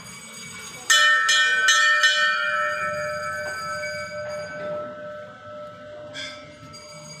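Temple bell struck four times in quick succession about a second in, about 0.4 s apart, its metallic ring slowly dying away, then struck once more near the end.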